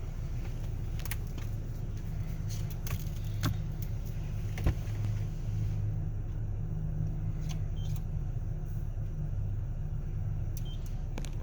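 Car engine idling with a steady low hum, with a few scattered clicks and knocks, the sharpest about four and a half seconds in.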